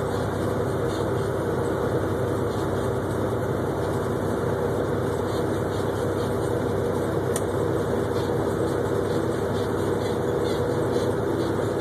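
Diesel engine of a tractor-trailer running steadily at highway speed, mixed with road and tyre noise, heard inside the truck's cab.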